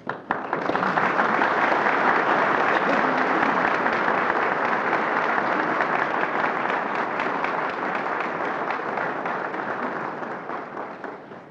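Audience applauding. Scattered first claps swell within a second into steady, dense applause, which dies away near the end.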